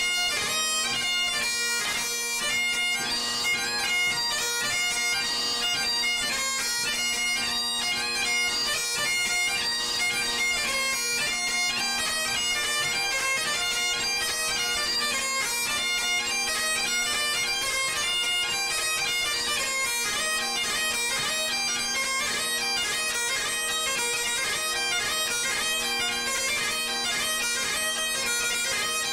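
Highland bagpipes playing a fast-moving melody on the chanter over steady, unbroken drones.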